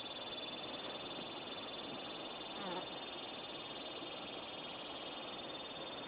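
Steady high-pitched chorus of calling animals in the riverside vegetation, a continuous buzzing trill, with a brief sliding call about halfway through.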